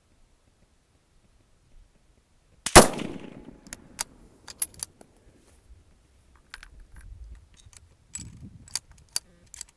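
A single rifle shot from a Stevens 200 bolt-action rifle in .223 Remington about three seconds in: one sharp crack with a trailing echo. It is followed by a run of light metallic clicks and clacks as the bolt is worked to eject the case and chamber the next handloaded round.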